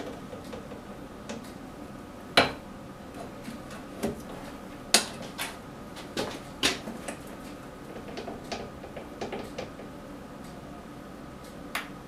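Irregular knocks and clatter as a wooden stick levers a new rubber tire onto a small metal band saw wheel lying on a wooden workbench; the sharpest knocks come about two and a half and five seconds in, over a faint steady hum.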